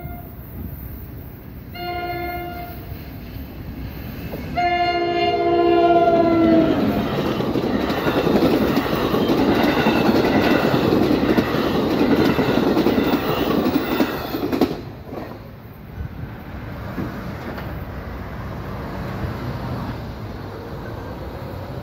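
NJ Transit ALP-46A electric locomotive's horn gives a short blast and then a long blast that drops in pitch at its end as the train reaches the crossing. This is followed by the loud rush and clickety-clack of bilevel commuter coaches passing at speed, which stops suddenly about fifteen seconds in as the last car clears the crossing.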